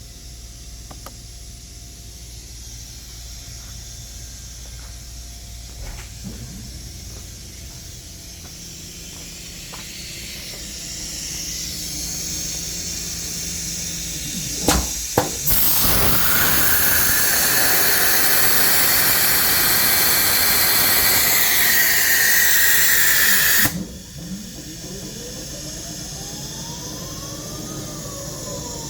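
Automatic tool changer on a CNC machine cycling through its first tool change, with a loud blast of compressed air. A few light clicks and a building hiss come first, then two sharp clicks and about eight seconds of loud rushing air that cuts off suddenly. Afterwards a tone rises and then falls in pitch.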